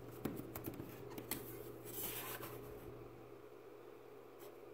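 Light handling noise: a few small clicks in the first second or so and a short scraping rustle about two seconds in, as a copper-clad circuit board is picked up, over a faint steady electrical hum.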